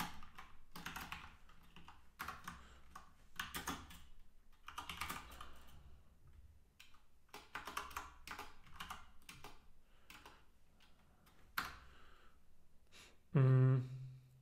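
Typing on a computer keyboard in short runs of keystrokes with pauses between them. Near the end there is a brief low hum from a man's voice, like a 'hmm'.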